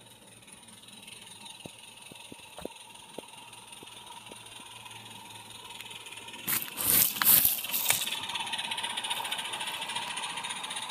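Small live-steam garden-railway locomotive hauling a train of hopper wagons, approaching and passing close by. Its clatter grows steadily louder, with a few sharp clicks from the wheels over the track early on, a loud burst of noise about two-thirds of the way in as it comes closest, then a steady fast rattle as the wagons roll past.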